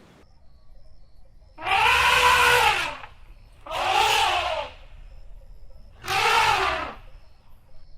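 Asian elephant giving three harsh trumpet calls, each about a second long with a short pause between, rising and then falling in pitch.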